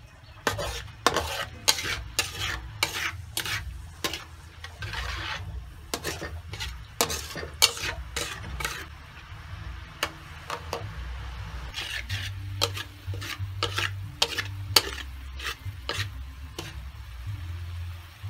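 Metal ladle scraping and clinking against a steel wok as it stirs a sizzling, bubbling sugar-and-garlic sauce, with a short lull in the stirring about halfway through.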